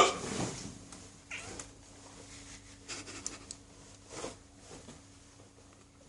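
A man's loud, sharp hiccup right at the start, and a domestic cat answering it with meows: a short call just after it, then a few quieter ones over the next few seconds.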